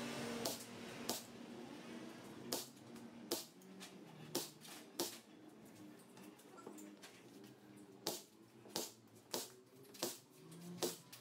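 A series of sharp clicks or taps, unevenly spaced at first and then about every half second or so near the end, over a faint low tonal background.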